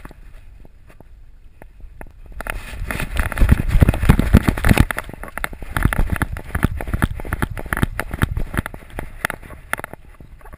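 Rapid thumps and rustling from a GoPro camera strapped to a running dog's back, the mount knocking with each bounding stride and fur brushing the housing. It gets loud about two and a half seconds in and eases off near the end.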